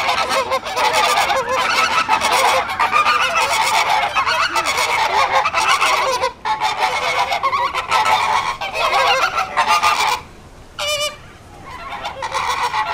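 A flock of flamingos honking over one another in a dense, continuous chatter. About ten seconds in the calling almost stops for a second or two, with one lone call, then the flock starts up again near the end.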